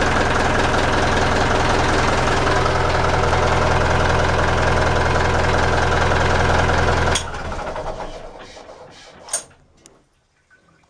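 Yanmar inboard marine diesel idling steadily, then shut off with the stop button about seven seconds in: it cuts out suddenly and runs down to silence within about a second. A single sharp click follows a couple of seconds later.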